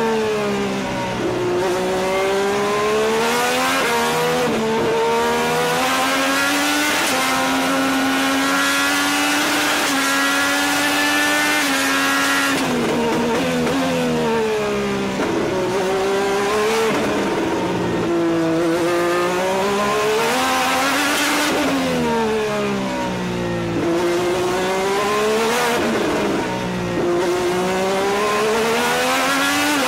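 IndyCar's Honda twin-turbo V6 at racing speed, heard from the cockpit. The engine note climbs through the gears with a sudden drop at each upshift, then falls in steps as the driver downshifts under braking for corners, again and again around the lap.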